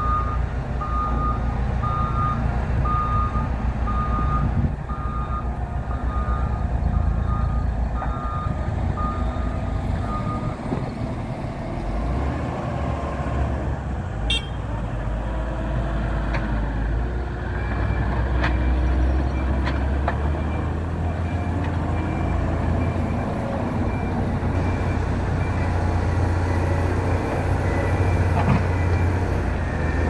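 Diesel engines of heavy earthmoving machines running under load. A reversing alarm beeps steadily and stops about a third of the way in. A second, fainter and higher-pitched beeping starts a little past halfway.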